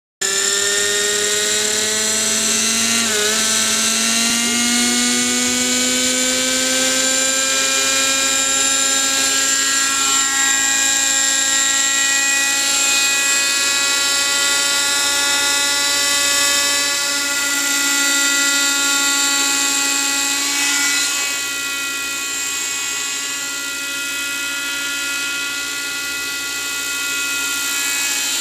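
Raptor 30 V2 model helicopter's OS 32SX-H two-stroke glow engine with a Zimmermann silencer, starting with the audio and rising in pitch over the first few seconds as the rotor spools up, with a brief dip about three seconds in. It then holds a steady, high-pitched whine through hover and flight, easing a little in level about three quarters of the way through.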